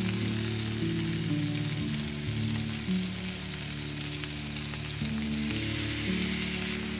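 Paneer, capsicum and onion sizzling steadily as they fry in a non-stick pan, with low, soft background music underneath.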